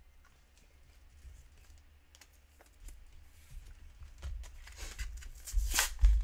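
Plastic card packaging being handled: faint taps and sliding of a sleeved trading card for the first few seconds, then louder crinkling and rustling of a plastic blister pack from about four seconds in, with a dull bump near the end.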